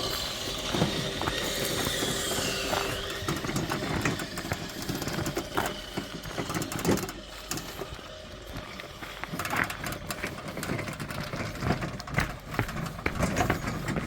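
An engine's whine falls in pitch and fades over the first three seconds, winding down, then scattered knocks and clatter follow.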